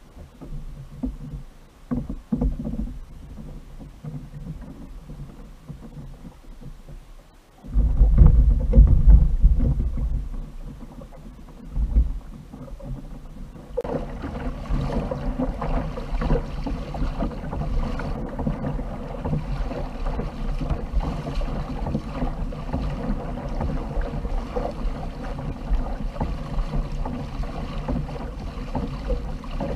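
Water rushing along the hull of a fishing kayak moving over the sea, a steady wash that sets in about fourteen seconds in. Before it, a loud low buffeting rumble lasting a couple of seconds, about eight seconds in.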